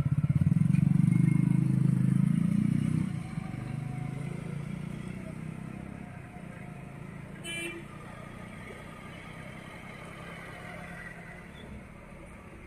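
A motor vehicle engine running close by, loudest for the first three seconds, then dropping off sharply and fading into a steady low traffic hum. A short high-pitched chirp comes about seven and a half seconds in.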